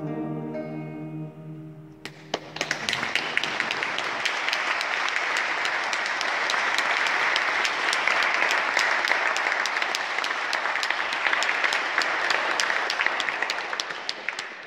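The last note of the song, voice and two acoustic guitars, rings out for about two seconds, then the congregation breaks into applause in the church, which carries on steadily and fades near the end.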